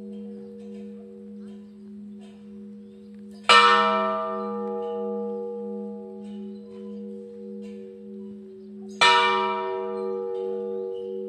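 A large church bell tolling slowly: struck twice, about five and a half seconds apart, each strike ringing out and decaying into a long hum that pulses as it fades. It is a slow toll calling to the evening service.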